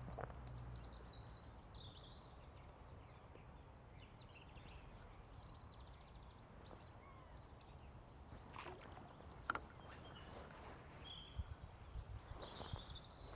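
Faint small songbirds twittering and trilling over a low hiss, with a few sharp clicks in the second half.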